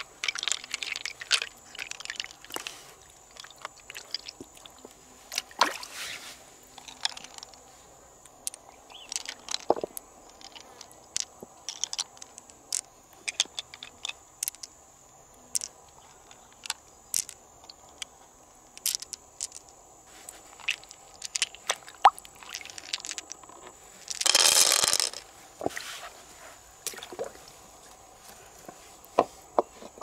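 Fingers working through the wet flesh of an opened freshwater mussel: scattered small clicks and taps of pearls knocking together and against the shell, with soft wet squishing. About three-quarters of the way in, a louder rushing noise lasts about a second.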